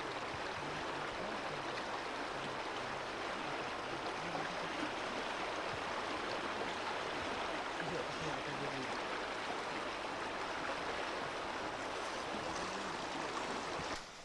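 Rushing whitewater of a slalom course: a steady wash of fast-flowing river rapids, which drops away just before the end.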